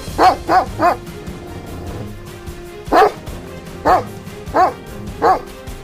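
Bhotia dog (Himalayan sheepdog) barking: a quick run of three barks, then a pause, then four more barks about a second apart. Background music plays under the barks.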